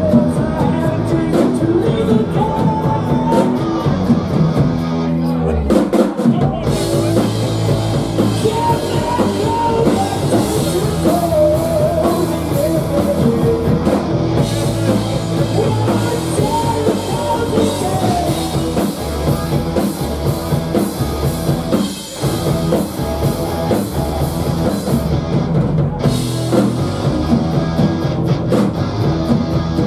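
Live rock band playing loud and steady: electric bass, drum kit with cymbals, and electric guitar, breaking for an instant about two-thirds of the way through.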